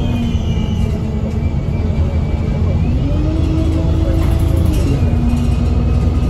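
ADL Enviro 200 MMC bus's six-cylinder diesel engine and Voith automatic gearbox heard from inside the saloon, with a heavy road rumble, as the bus picks up speed. The engine note rises about three seconds in, holds, then drops near five seconds in as the gearbox changes up.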